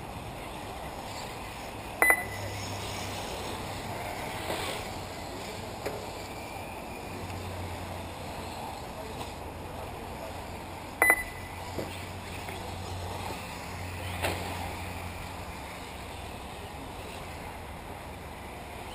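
1/8-scale nitro RC off-road buggies running around a dirt track, heard as a steady distant background, with two sharp knocks about two seconds in and again near the middle.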